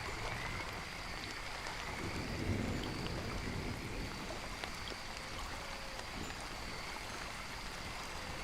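Steady rain falling, an even hiss, with a brief low swell about two and a half seconds in.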